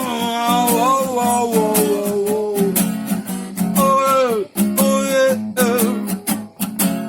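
Acoustic guitar strummed in a steady rhythm under a voice singing long wordless notes that slide up and down in pitch.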